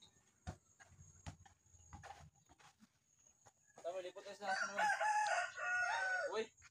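Rooster crowing, one long broken crow about two and a half seconds long in the second half, preceded by a few short knocks.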